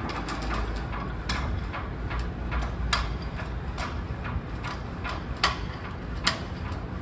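Flagpole halyard hardware clinking against the metal pole as the flag stirs, sharp clinks about once a second at uneven intervals, two of them louder, over the low rumble of wind on the microphone.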